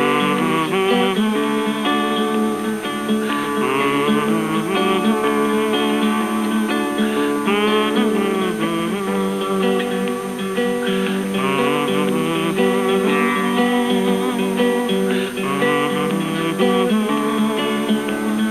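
Acoustic guitar strumming and picking a folk tune.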